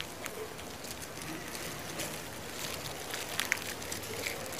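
Disposable plastic gloves crinkling and a boiled egg's shell crackling as it is peeled by hand, with a few small clicks.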